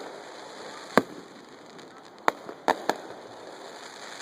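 Display fireworks bursting: four sharp bangs, one about a second in, then three in quick succession a little past two seconds.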